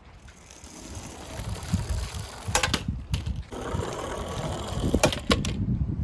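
Toy minicars rolling and rattling over a hard surface, with a steady low rumble. Sharp clacks come in two pairs, one about halfway through and one near the end.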